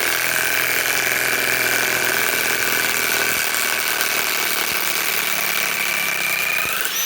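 Milwaukee M18 Fuel Gen 3 high-torque impact wrench running steadily in reverse, backing out a 6-inch lag screw. It makes a loud motor whine that rises slightly in pitch near the end.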